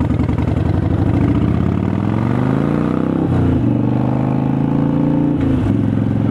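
Harley-Davidson Sportster Seventy-Two's V-twin engine accelerating through the gears, picked up by a helmet-mounted microphone. The revs climb, drop sharply at an upshift about three seconds in, drop again at a second upshift near the end, then hold steady.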